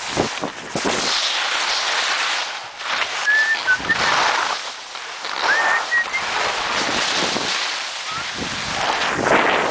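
Wind rushing over a handheld camera's microphone and skis hissing and scraping over the snow on a fast downhill run, in swells, with a few brief high chirps near the middle.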